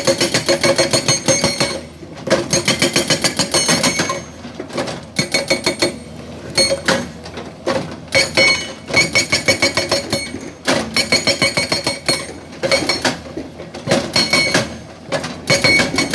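GBN 210TL hydraulic rock breaker hammering its chisel into rock: rapid blows, about eight a second, each with a metallic ring. The blows come in runs of one to three seconds, broken by short pauses.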